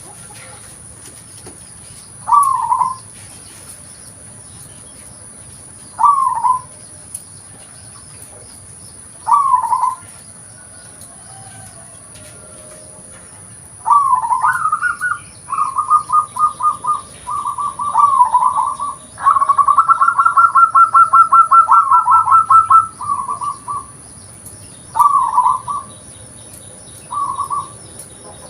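Local zebra dove (perkutut) calling: short cooing phrases every three to four seconds, then about halfway in a long song of rapid staccato coos, quickest and loudest a little past the middle.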